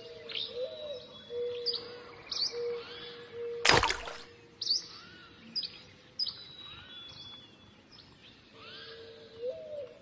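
Small birds chirping and calling with short, quick downward-sweeping notes, over an on-and-off low steady tone. A short loud noisy burst, the loudest sound, comes about four seconds in.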